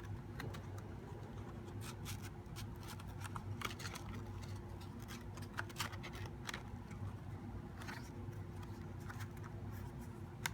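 Cardboard box panels being slid against and into each other by hand: irregular scraping, rustling and light tapping of card on card. A steady low hum runs underneath.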